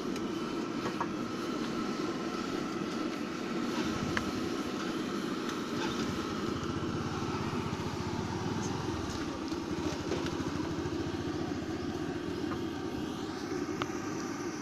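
Hot oil sizzling steadily as a batch of samosas deep-fries in a large iron kadai. A motorbike engine's low rumble is strongest from about four to nine seconds in, with a few light clicks of utensils.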